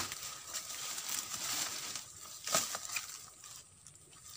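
Rustling and crunching in leaf litter and undergrowth, with a short knock right at the start and another about two and a half seconds in; it is quieter toward the end.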